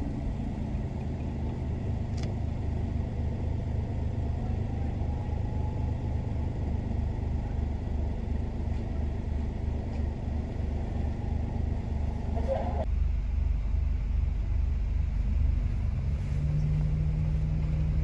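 Steady low rumble of road and engine noise heard from inside a moving car. The sound changes abruptly about two-thirds of the way through, and a steady low hum joins near the end.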